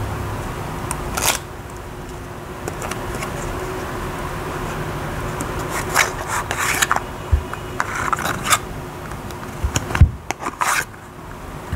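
Tarot cards being handled, the stiff cards sliding and rubbing against each other in short scraping strokes, scattered at first and bunched together in the second half, over a steady background hum.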